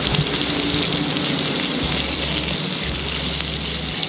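Sliced onions sizzling steadily as they fry in hot coconut oil and ghee in a pan.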